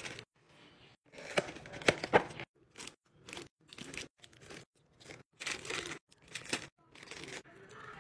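Plastic snack wrappers crinkling and rustling in irregular bursts as packs are handled and pushed into a clear plastic bin, loudest about two seconds in.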